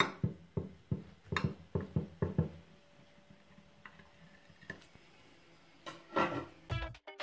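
Kitchen knife cutting through a stacked sandwich onto a glass cutting board: a quick run of sharp taps, about three a second, then quieter. A louder, longer noise comes near the end, and guitar music starts just after it.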